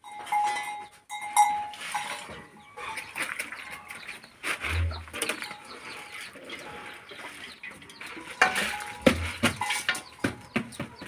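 Metal pots, bowls and a metal tray clinking and scraping as they are handled, with a quick run of sharp knocks near the end, and a goat bleating.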